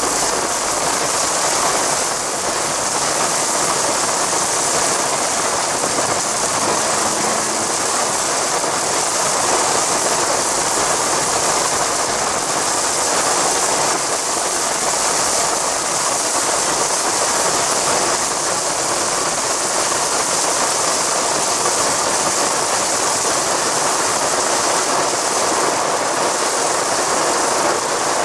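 Torrential rain beating on a car's roof and windscreen, heard from inside the cabin while driving: a loud, steady hiss and patter with no let-up.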